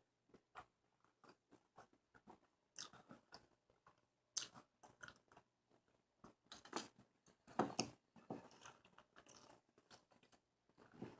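Faint, close-miked chewing and biting of a hamburger: soft wet smacks and crunches at an uneven pace, with a few louder bites about 3, 4.5 and 7.5 seconds in.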